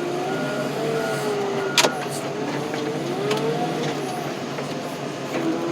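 Tractor engine working under load, its pitch rising and falling as the throttle and load change. A backup beeper sounds through the first second, and there is a single sharp knock about two seconds in.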